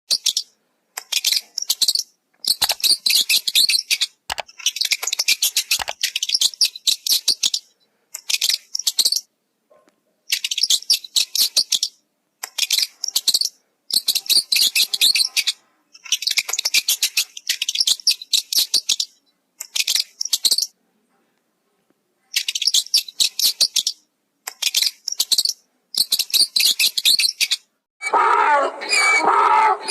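Bird chirping: fast trains of high notes in bursts of one to two seconds, broken by abrupt silences. Near the end a louder, fuller sound with lower pitches takes over.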